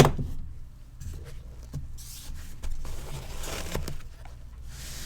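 A cardboard trading-card box and its packaging being handled and emptied: a sharp knock at the start, then small clicks and several brief rustling, sliding strokes of cardboard and wrappers.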